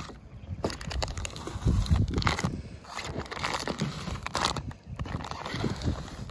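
Vinyl wrap film being peeled off a car's paint by hand, crackling and crinkling as it is pulled. The wrap is fresh, so it lifts easily.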